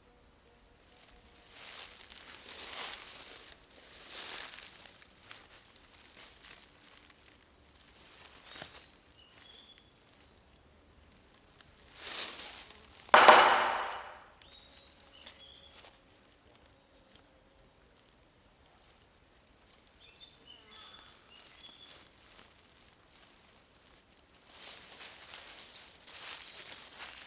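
Intermittent rustling and swishing, several separate bouts with the loudest about thirteen seconds in, and short chirps between them.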